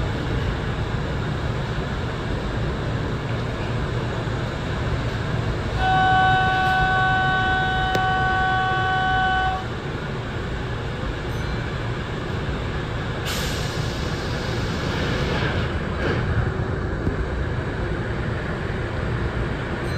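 A train horn sounds one long steady chord of three tones for nearly four seconds, about a third of the way in, over the steady rumble of an electric train.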